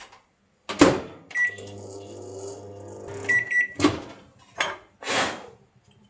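Microwave oven door clunking shut, a beep as it starts, then a couple of seconds of the oven running with a low steady hum. The hum stops with a short run of beeps, the door clicks open, and the filament spool clatters as it is pulled out.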